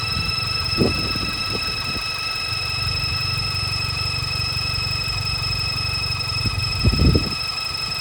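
Suzuki Jimny Sierra's K15B four-cylinder engine idling with a steady high-pitched 'kiin' whine from the left side of the engine, which mechanics suspected came from the alternator or its pulley. A couple of low thumps come through the idle, the louder one near the end.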